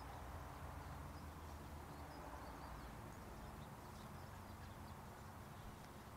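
Quiet outdoor ambience: a faint steady low rumble of wind, with scattered faint bird chirps.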